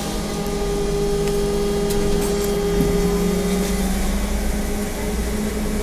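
Trolleybus running: a steady electric hum and whine from the drive over a low ride rumble, with the higher whine fading out about four seconds in.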